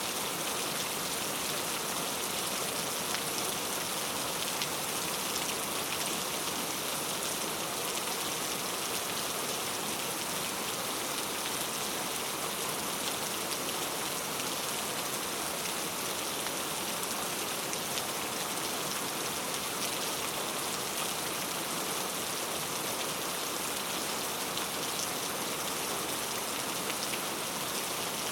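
Heavy rain falling steadily on a surface: a dense, even hiss with fine drop patter.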